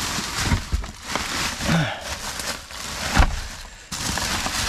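Plastic bags and wrappers crinkling and rustling as a gloved hand rummages through them, with a dull knock about three seconds in.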